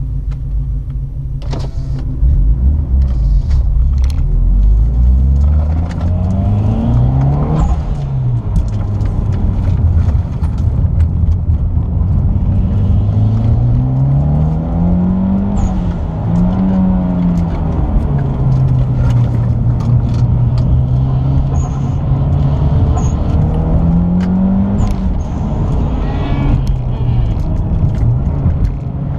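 Mitsubishi Lancer Evolution X's turbocharged 2.0-litre four-cylinder heard from inside the cabin, driven hard on track: the engine note climbs in pitch under acceleration and drops away again several times through the course. Scattered short clicks and rattles sound over it.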